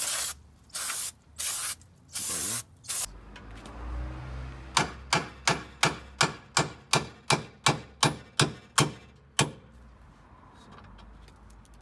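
Aerosol brake cleaner spraying in short hissing bursts onto a car's drum-brake hub. Then about a dozen sharp hammer blows, roughly three a second, knocking a worn wheel stud out of the hub.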